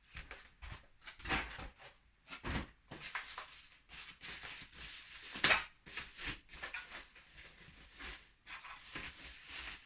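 Packaging being handled as a boxed car head unit is unpacked: irregular rustling and scraping with light knocks, the loudest rustle about five and a half seconds in.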